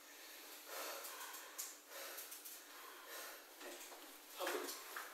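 A person breathing audibly in and out, several soft breaths in a row: steady breathing kept up while holding a rifle on aim rather than holding the breath.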